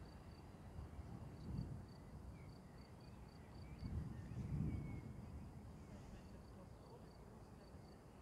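A faint high insect chirp repeating evenly at about four pulses a second, over a low rumble that swells twice, loudest about four to five seconds in.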